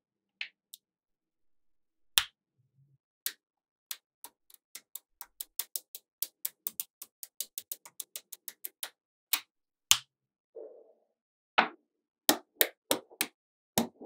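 Small magnetic balls clicking as they snap onto a magnet-ball structure one at a time: a few sharp clicks, then a quick run of about four clicks a second, then louder scattered snaps and a faster cluster near the end.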